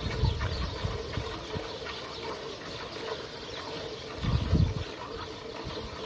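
Milk squirting from a cow's teats into a steel bucket during hand milking, with a faint steady hum behind and a dull low rumble near the start and again about four seconds in.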